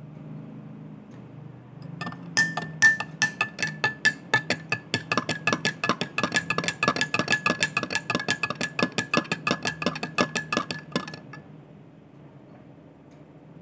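A metal spoon stirring coffee in a cup, clinking against the sides in a fast run of about five or six strikes a second while the cup rings with a steady tone. The stirring starts about two seconds in and stops about two-thirds of the way through.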